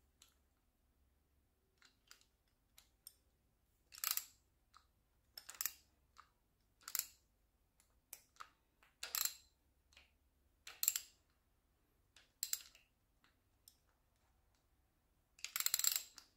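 Faint, scattered metal clicks and short scrapes from a small-block Chevy 305 V8's valvetrain as the rocker arm adjuster is snugged down and the pushrod is turned by hand to feel for zero lash. The longest, loudest scrape comes near the end.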